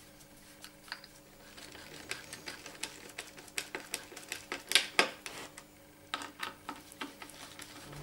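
Hand screwdriver driving the fixing screws of a metal door rose into a wooden door, making an irregular run of clicks and short scrapes that is loudest about halfway through.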